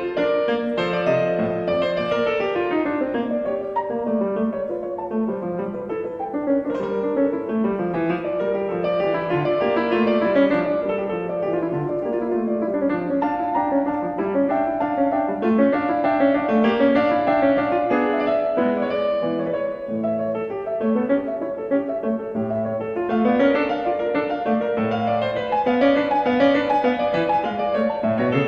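Background piano music: a steady, flowing run of notes.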